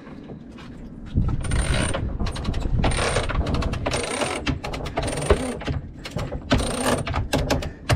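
A sailboat's halyard winch being cranked with a winch handle to hoist the mainsail, its pawls clicking in a rapid run with each turn. The clicking comes in repeated bursts about once a second, starting about a second in.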